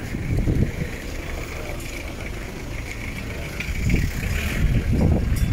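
Street ambience: an uneven low rumble that swells about half a second in and again near the end, over faint steady background noise.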